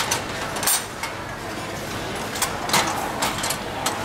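Automatic egg cake machine running, its hinged metal moulds clacking as they advance and open and shut: about six sharp metal clacks at uneven spacing over a steady background noise.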